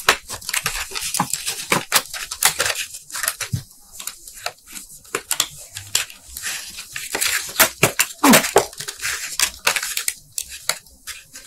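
Thin green plastic seed cups and their card sleeve being handled and pushed about: an irregular run of crinkling, crackling and clicking.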